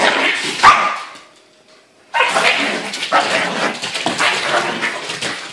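A husky puppy and a yorkie-poo barking as they play-fight, with a near-silent pause of about a second shortly after the start.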